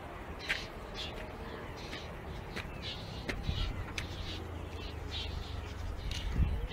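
Crows cawing, short harsh calls repeating about twice a second, over wind rumbling on the microphone, with a few sharp clicks of handling noise.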